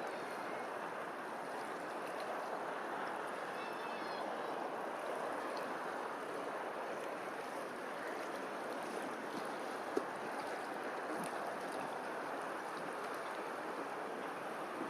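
Steady rushing of running water, like a stream, with a couple of short high chirps about four seconds in and a single sharp click near the end.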